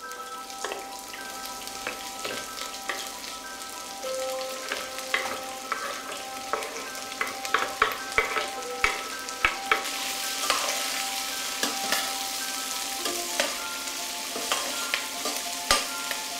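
Diced red onion sizzling in hot olive oil in a stainless steel pot, with a metal spoon clinking and scraping against the pot and the wooden board as the onion is tipped in and stirred. The sizzle grows louder about ten seconds in.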